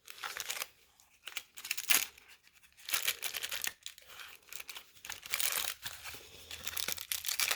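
Packaging being unwrapped by hand: paper or plastic wrapping crinkling and tearing in irregular rustles and crackles.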